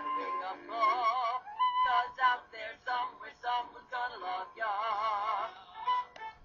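Voices singing a musical-theatre number with accompaniment, some held notes wavering with vibrato.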